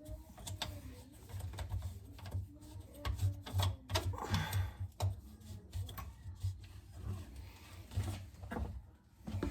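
Irregular clicks, knocks and low thuds of hand tools and metal drain parts being worked on while an old bathroom sink pop-up drain is taken apart.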